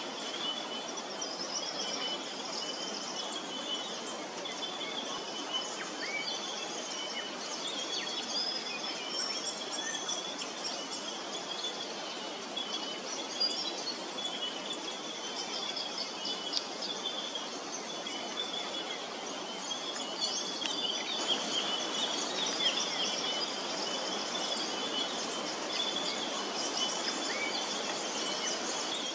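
Many birds chirping and calling together, with a steady high trill running underneath.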